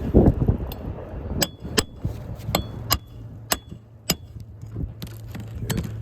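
Hammer striking a steel roofing snake to drive a roofing nail in under an asphalt shingle: about seven sharp metallic clinks with a brief ring, roughly half a second apart.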